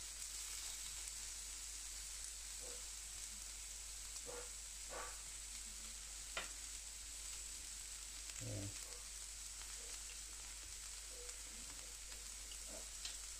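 Food frying on a carbon steel griddle: a faint, steady sizzle, with a few brief knocks in the middle.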